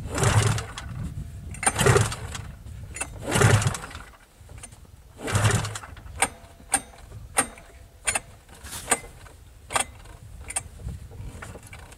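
Arctic Cat 600 snowmobile engine cranked by its recoil pull-starter four times, about a second and a half apart, turning over without catching; there seems to be no fuel in the lines yet. Sharp clicks follow in the second half.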